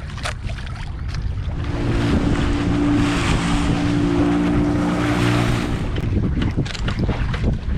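Boat motor running with wind buffeting the microphone. For a few seconds in the middle, a louder steady engine note and rushing water come up, then ease back.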